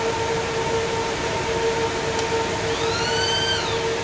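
A steady mechanical hum, with a siren-like wail that rises and falls once about three seconds in.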